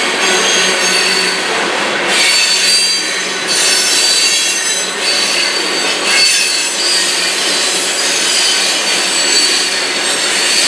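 Freight cars of a mixed freight train rolling past close by. Steel wheels on the rails make a steady rushing noise, with high-pitched wheel squeal running over it.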